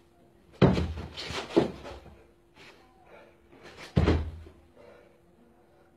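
Two heavy thuds of a person's body hitting a carpeted floor during clumsy floor acrobatics, about three and a half seconds apart, with a few smaller knocks after the first.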